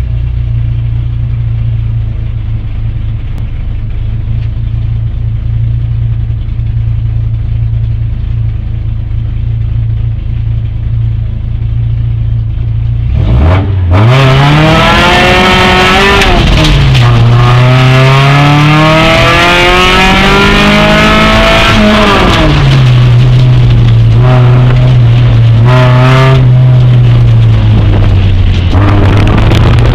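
Porsche 944's four-cylinder engine heard from inside the cabin: it idles steadily, then a little under halfway in it revs hard on launch and keeps climbing and falling in pitch with gear changes and throttle lifts, rising again near the end.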